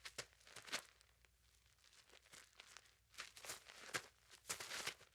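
Faint footsteps of a hiker crunching on a dirt logging road, in an uneven walking rhythm that grows a little louder in the second half.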